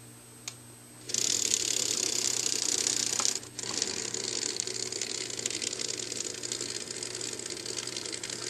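Motor and gears of an N scale Arnold S-2 switcher running as the model locomotive moves along the track: a steady, high whirring that starts about a second in, drops out briefly about two and a half seconds later, then runs on.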